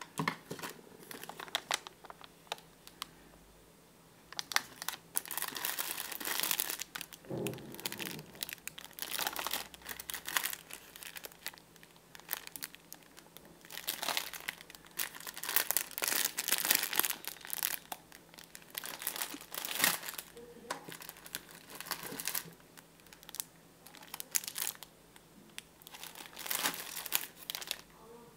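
Clear plastic bags of nuts being picked up and handled, crinkling in irregular bursts with short quieter gaps between them.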